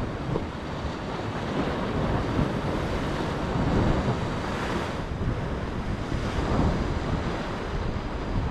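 Rough sea washing and breaking against a rocky shore ledge, rising and falling in surges, with wind buffeting the microphone.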